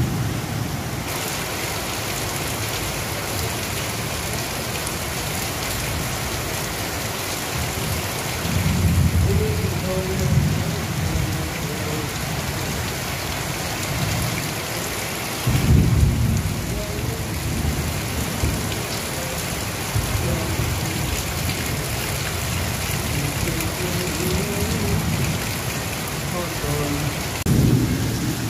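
Steady rain pattering on corrugated tin roofs, with a few heavier low rumbles about a third of the way in, around the middle and near the end.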